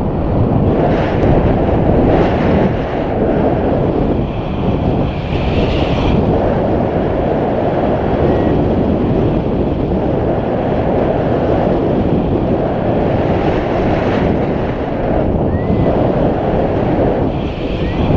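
Wind from the paraglider's flight rushing over the camera microphone: a loud, steady, low rumbling buffet.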